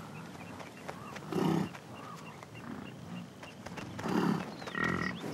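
American bison grunting: several short, low grunts, the loudest about a second and a half in and again about four seconds in, from young bulls sparring.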